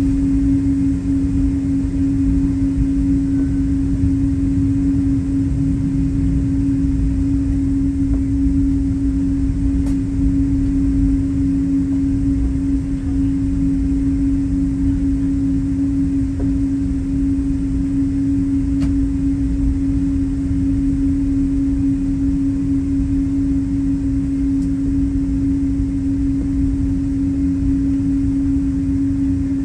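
Cabin sound of a Boeing 777-200 taxiing: a steady hum from its Pratt & Whitney PW4077 engines at taxi power over a low, uneven rumble, with a few faint ticks.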